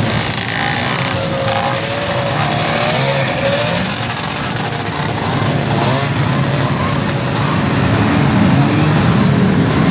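Several vintage two-stroke snowmobile engines running together close by, their pitch wavering up and down as the sleds are revved and pull past.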